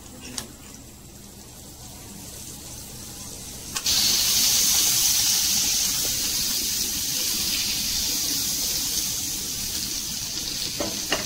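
Butter melting and sizzling in a hot nonstick frying pan over a gas flame. A faint sizzle grows slowly, then about four seconds in it jumps suddenly to a loud hissing sizzle that eases off slowly as the butter foams.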